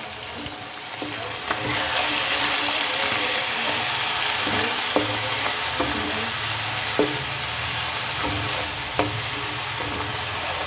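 Goat mutton pieces and onions sizzling in oil with ginger-garlic paste and spices in a non-stick wok, stirred with a wooden spoon, with a few sharp clicks of the spoon against the pan. The sizzle grows louder about two seconds in.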